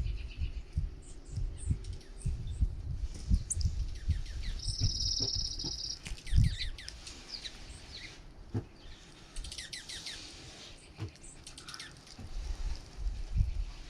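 Small songbirds at a feeder chirping and calling over one another, with one buzzy trill about five seconds in. An uneven low rumble runs underneath.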